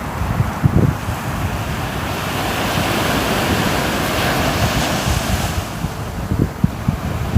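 Ocean waves on a shore: a wave washes in, swelling in the middle and fading away, with low wind buffeting on the microphone throughout.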